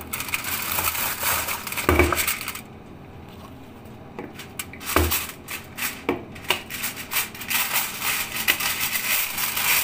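Aluminium kitchen foil being pulled off a roll and smoothed by hand, crinkling and rustling with sharp crackles. It quietens for a couple of seconds about a third of the way in, and there are a few low thumps.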